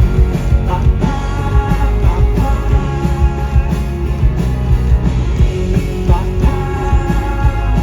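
Live indie rock band playing loudly: drums, bass and electric guitars, with vocals over them.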